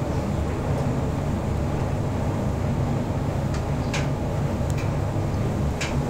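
Bosch Serie 8 heat-pump tumble dryer running its duvet programme: a steady low hum and rumble from the motor and turning drum, with a few light ticks in the second half.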